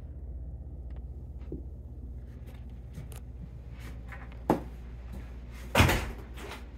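A steady low hum of a quiet room, with a sharp click about four and a half seconds in and a louder, deeper thump over a second later.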